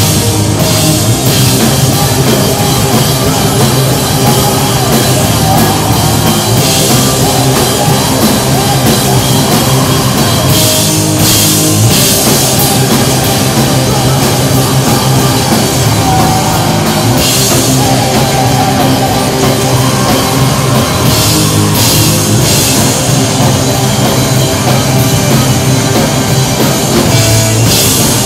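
Live rock band playing loud: electric guitars, bass and drum kit, with cymbal crashes every few seconds.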